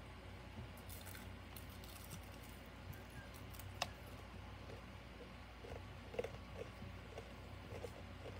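Faint handling noises over a low steady room hum: a light rustle, a single sharp click about four seconds in, then a few soft small ticks near the end.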